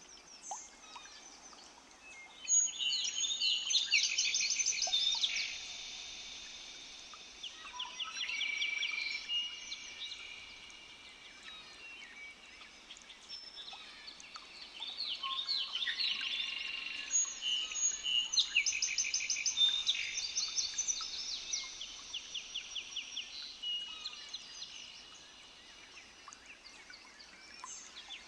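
Several songbirds singing together: overlapping clear whistled notes and fast trills, swelling into two louder bouts of song, one a few seconds in and one in the second half.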